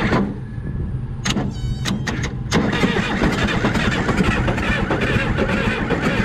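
Case 580 Construction King backhoe engine turning over slowly on the starter, then catching about two and a half seconds in and running on.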